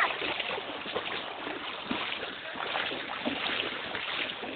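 Running stream water with irregular splashing and sloshing, as of feet wading through a shallow stream.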